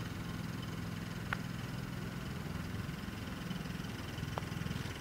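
Quiet outdoor ambience on a golf green with a steady low hum, a faint tick about a second in, and the light click of a putter striking the ball near the end.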